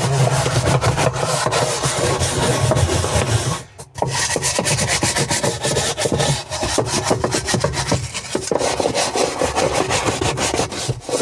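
Hand scrubbing with a stiff brush: rapid back-and-forth rasping strokes, with a brief pause about four seconds in.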